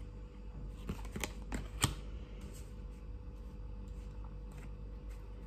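Tarot cards handled and laid down on a tabletop: a few light taps and card slides, the sharpest about two seconds in, then fainter ticks of card against card.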